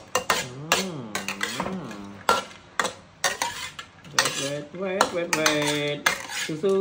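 Metal spatula scraping and knocking against a steel wok while stir-frying, many quick clatters in a row. A pitched voice-like whine rises and falls between the strokes, about a second in and again in the second half.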